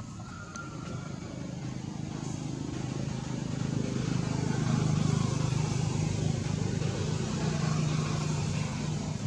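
A motor vehicle's engine running as it passes, a low steady hum that grows louder to a peak about five seconds in, then eases off.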